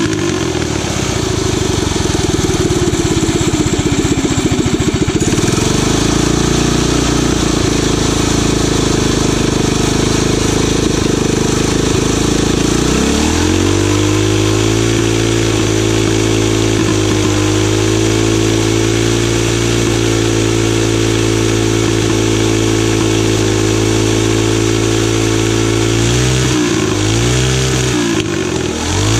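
Tillotson 212cc single-cylinder engine, governor removed, running while its new Tillotson TCT carburetor is tuned. The revs climb nearly halfway in and hold steady for around twelve seconds, then drop and pick back up twice near the end.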